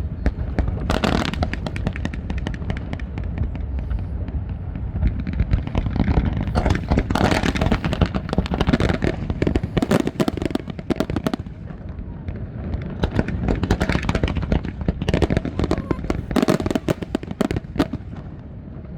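Fireworks display: a dense run of bangs and crackles over a steady low rumble, with the heaviest volleys about a second in, in the middle, and near the end.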